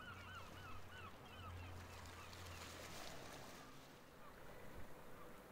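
A bird calling in a quick series of short, arching calls, about four a second, loudest in the first second and then fainter and sparser until past the middle. A faint low hum lies underneath.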